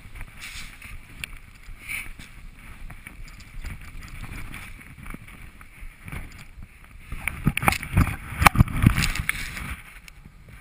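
Skis swishing and hissing through deep powder snow, with wind on the microphone and scattered knocks on the camera. About three-quarters of the way in comes a louder run of thuds and rushing snow as powder sprays over the camera.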